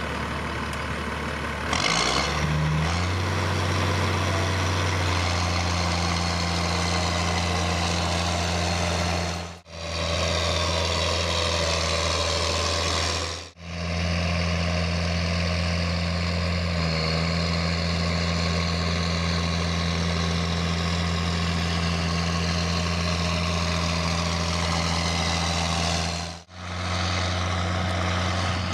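John Deere 7710 tractor's six-cylinder diesel engine running steadily, its pitch rising about two seconds in. The sound briefly fades out and back three times.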